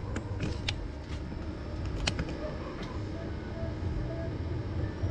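Steady low background rumble with a few light clicks, the strongest about two seconds in. The switched-on amplifier gives no speaker-protect relay click: it is not engaging.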